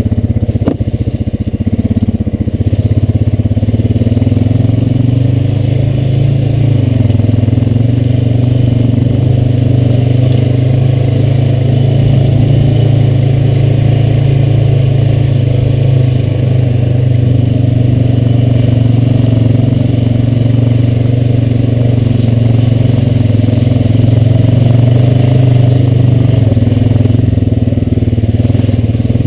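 Honda Rancher 420 ATV's single-cylinder four-stroke engine running steadily at low trail speed, its pitch rising and falling a little as the throttle changes.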